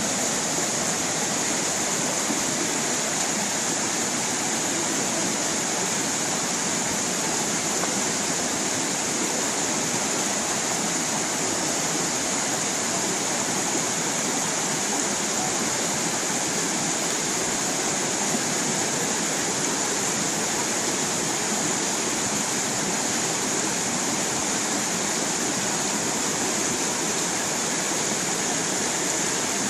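Small stream of water rushing and splashing over rocks, a steady, even hiss with no breaks.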